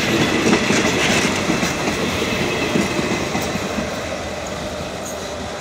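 Passenger coaches of a State Railway of Thailand train rolling past, their steel wheels clacking over the rail joints, the sound easing off as the last coach goes by.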